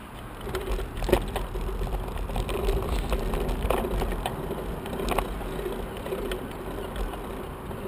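Bicycle in motion: tyre and road noise with a low rumble and a steady hum, broken by several sharp knocks or rattles, the loudest about a second in.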